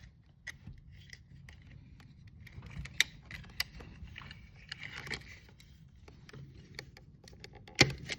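Scattered small clicks, taps and scraping from hands working with tools, cable and socket parts, with a loud sharp knock near the end.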